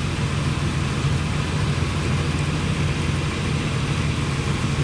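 Ford Explorer's 4.0-litre SOHC V6 idling steadily, heard from beneath the vehicle, kept running while the 5R55S transmission self-levels its fluid.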